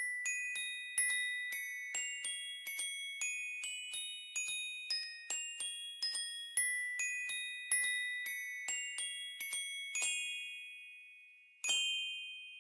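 Song intro: a slow melody of single high, bell-like notes, glockenspiel-like, about two a second, each struck and ringing away. The notes stop about ten seconds in, with one last note shortly before the end.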